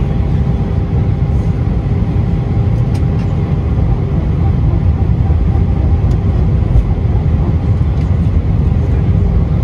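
Steady low rumble of an airliner's cabin noise, the engines and rushing air heard from inside the passenger cabin, with a faint steady hum over it.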